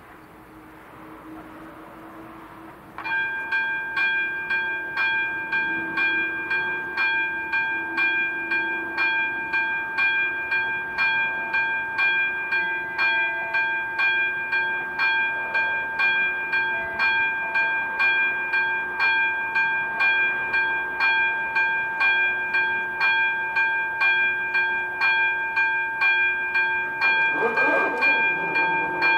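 Level crossing's electronic warning bell, switched on about three seconds in and ringing steadily at about two strokes a second: the crossing has been activated for an approaching train. Near the end a short rising whirr joins it as the barrier arms begin to lower.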